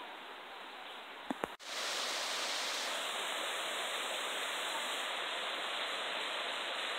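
Shallow rocky river rushing steadily over stones, coming in suddenly about a second and a half in after two short clicks; before that, only a quiet forest background.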